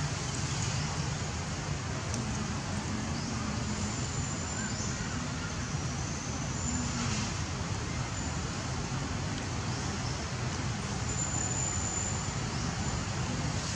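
Steady outdoor background rumble and hiss, even throughout, with no distinct events.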